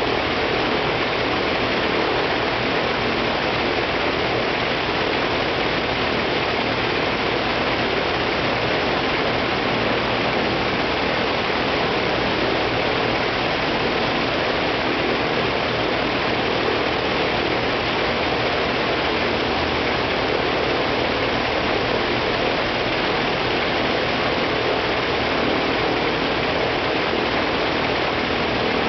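Il-14T's left engine, a Shvetsov ASh-82T 14-cylinder twin-row radial, running steadily on a ground run with its propeller turning; an even, unchanging engine and propeller noise throughout.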